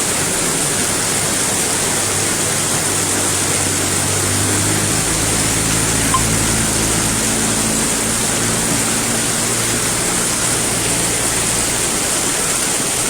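Heavy rain pouring steadily in a thunderstorm downpour. A motor vehicle's engine hum rises in from about three seconds in and fades out near eleven seconds as it passes, with a single sharp tick about six seconds in.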